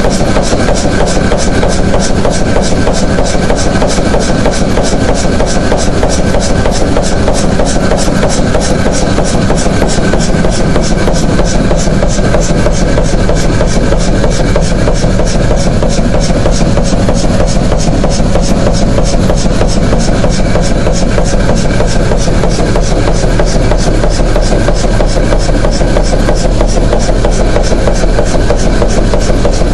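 1969 Hundested two-cylinder, 150 hp two-stroke hot-bulb (semi-diesel) marine engine running steadily while warming up, with an even, rapid knocking beat over a low hum.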